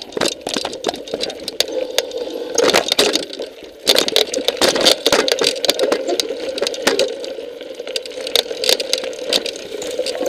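Mountain bike rattling and clattering over a rocky trail, heard from the camera bike, with a steady rolling noise and many sharp knocks as the wheels hit rocks. Near the end the rider ahead crashes into a brushy bush.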